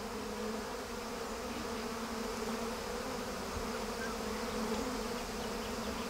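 Himalayan giant honey bees (giant cliff bees) buzzing en masse on their nest comb: a steady, even hum.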